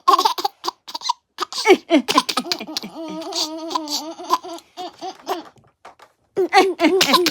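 A baby laughing in quick repeated bursts, stopping briefly about six seconds in, then laughing again.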